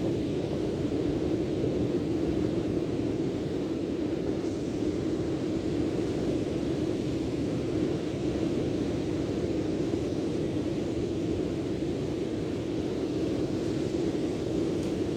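Steady rushing outdoor noise, strongest in the low-middle range, holding an even level throughout with no distinct events.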